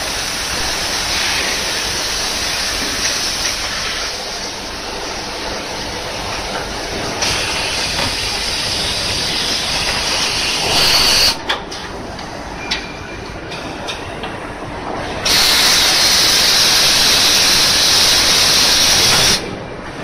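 KIRA KN40Vb vertical machining center running through an axle-flange cycle. It gives a continuous hissing spray. A louder hiss comes briefly just before the middle, a few sharp clicks follow, and a strong hiss lasts about four seconds near the end.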